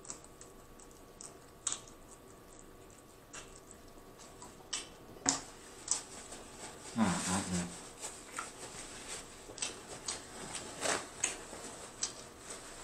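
Close-up sounds of a person chewing fried shrimp: scattered wet mouth clicks and smacks, sparse at first and more frequent from about halfway, with a short voiced hum of enjoyment about seven seconds in.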